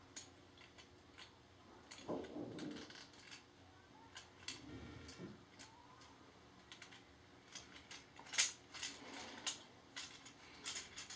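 Irregular small plastic clicks and rattles of a Transformers Deluxe Class Ratchet action figure being handled, its joints and panels clicking as it is transformed, with one sharper click past the middle.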